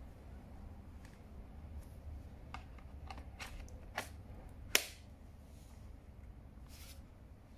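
A handful of sharp plastic clicks and knocks as a battery pack is fitted onto a cordless bee-shaker's handle. The loudest is a single sharp snap a little under five seconds in, as the pack seats. Under them is a faint low hum.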